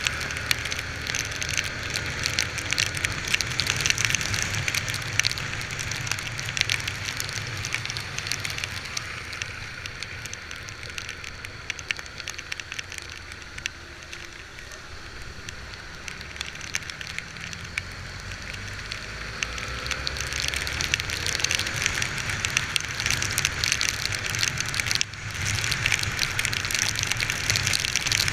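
Heavy rain falling, a dense crackle of drops over the low running of a Honda XR 250 Tornado's single-cylinder four-stroke engine. The rain eases a little midway and grows louder again near the end.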